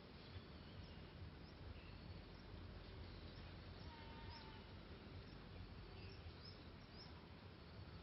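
Faint, scattered short chirps from small birds, with one lower call about four seconds in, over a steady low background rumble.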